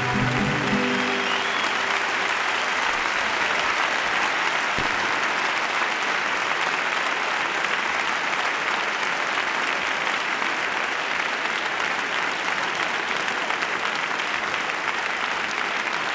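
Large audience in a concert hall applauding steadily. The last held chord of the song fades out in the first second or so.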